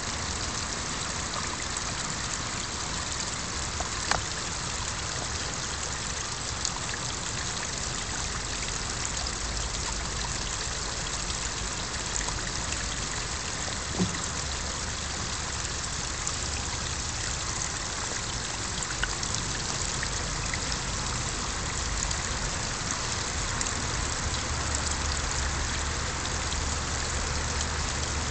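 Small garden-pond waterfall splashing and trickling steadily into the pond, with a low rumble underneath that grows stronger near the end.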